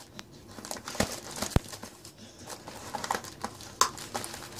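Christmas wrapping paper crinkling and tearing as a Staffordshire bull terrier rips at the present with her teeth, in many irregular rustles, with a few sharp knocks, the first about a second in.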